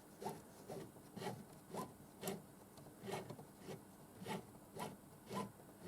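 Faint rhythmic rubbing strokes, about two a second.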